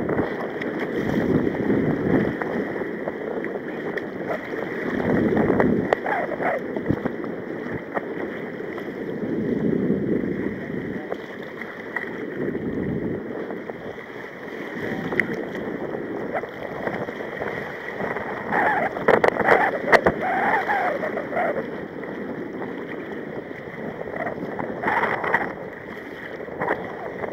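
Choppy sea water sloshing and slapping against a sea kayak's hull, with wind on the microphone, swelling and easing every few seconds. Faint voices come through about two-thirds of the way in.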